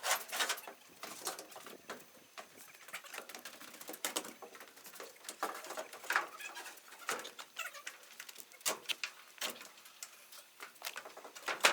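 Irregular knocks, clicks and light clatter of parts and boxes being handled and fitted into place during workshop assembly.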